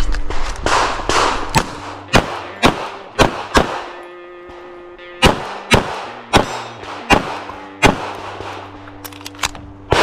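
A CZ 75 Compact pistol firing a rapid string of shots, roughly two a second, with a break of about a second and a half near the middle before the shooting resumes.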